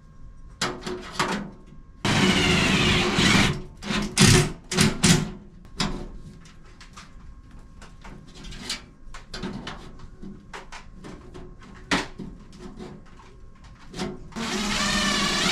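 Cordless impact driver running in two short bursts of about a second and a half, one near the start and one near the end, fastening steel L brackets to the sheet-metal stove front. Scattered clicks and knocks of hardware being handled fall in between.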